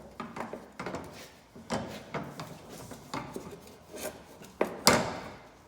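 Irregular knocks and scrapes of a quick shifter and its parts being handled and set in place on the car floor for marking, with the loudest knock about five seconds in.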